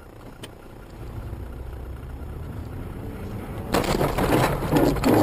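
Steady engine and road noise inside a moving car, then about three and a half seconds in a sudden loud car collision: an impact followed by clattering and rattling.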